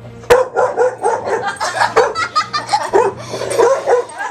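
A dog barking in a quick, repeated run of short barks, about three a second, worried barks at a toy dinosaur.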